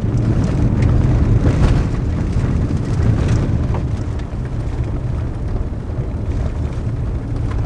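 Cabin noise of a Toyota RAV4 driving on a gravel road: a steady low rumble from the tyres and engine, with a few faint sharp ticks.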